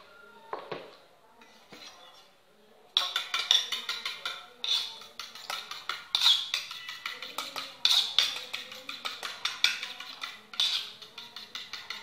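A fork beating egg in a small stainless-steel bowl: rapid metallic clinking of the tines against the bowl, starting about three seconds in after a few soft knocks.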